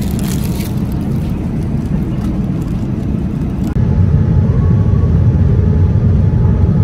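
Steady low rumble of an airliner cabin in flight, with plastic food wrapping crinkling in the first second or so. About four seconds in, after a cut, the rumble grows louder beside a window seat on approach with the flaps extended, and a faint steady whine sits above it.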